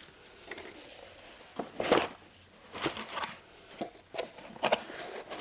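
Light clicks and knocks of a metal hand tool, a ridge reamer, being handled and packed away, about eight short irregular taps spread over a few seconds.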